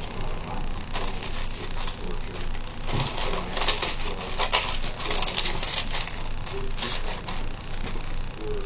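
Clicks, rattles and rustles of plastic model-kit parts, sprues and packaging being handled and moved around on a workbench, busiest in the middle of the stretch.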